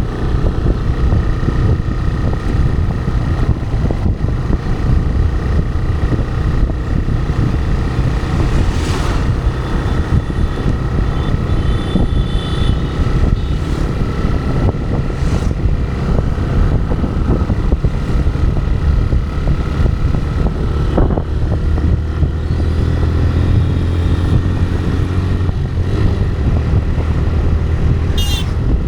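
TVS Raider 125's single-cylinder engine running steadily under way, mixed with wind rushing over the camera microphone. A brief high-pitched chirp comes near the end.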